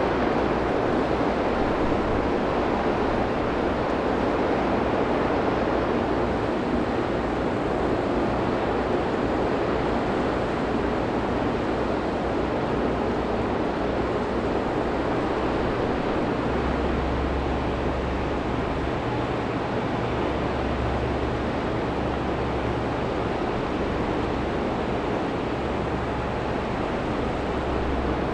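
Steady harbour noise of wind and water, under a low rumble of ship engines that grows stronger about two-thirds of the way in.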